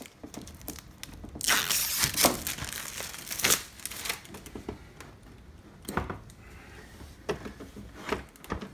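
Packing tape being peeled and crinkled off the plastic cover of an air conditioner's indoor unit, with a stretch of tearing and crinkling from about a second and a half in to three and a half seconds. After it come a few short scrapes and clicks of the plastic panel being handled.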